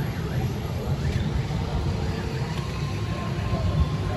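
Roadside street ambience: steady rumble of road traffic running by, with faint voices.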